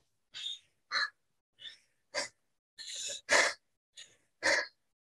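A man panting hard from exertion during a workout: about nine short, loud, noisy breaths in quick succession, roughly one every half second.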